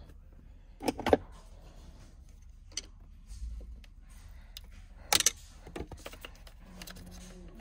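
Small plastic clicks and knocks of a steering wheel's paddle shifter being worked free of its retaining clips. There are a few separate snaps, the loudest about a second in and just after five seconds in.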